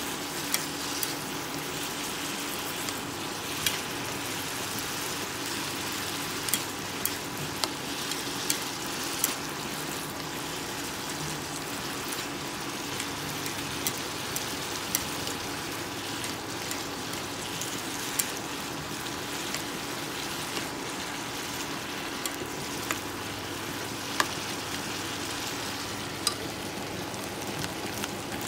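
Shredded chayote and garlic sizzling as they stir-fry in a nonstick pan, with scattered sharp pops and clicks as they are stirred with chopsticks, over a faint steady hum.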